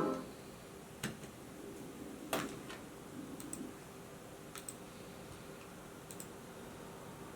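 Faint scattered computer clicks: two single knocks in the first few seconds, then several quick double clicks spread through the rest, as from a computer keyboard and mouse.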